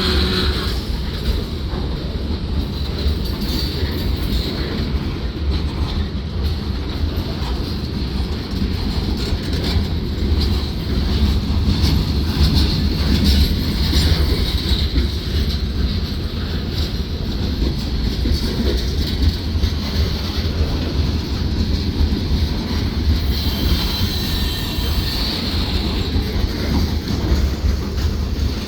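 Freight train cars rolling past on the track, a steady low rumble of wheels on rail, with a thin high wheel squeal coming and going, most plainly around the middle and again near the end.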